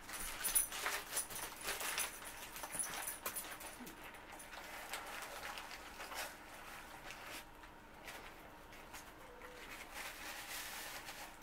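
Paper burger wrapper crinkling and rustling for the first few seconds, then close-up chewing and mouth sounds of someone eating a burger.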